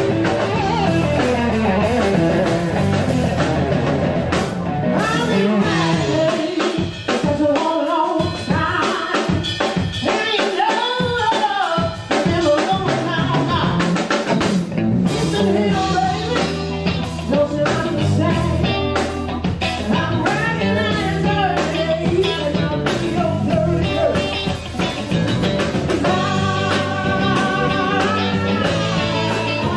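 Live blues band: a woman singing over electric guitar, electric bass and drum kit. The bass and low end drop out for a few seconds about seven seconds in, then come back.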